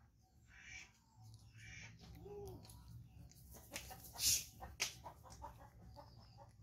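A baby macaque crunching on a crisp snack, with a series of sharp crackling bites from about the middle onward. Chickens cluck in the background.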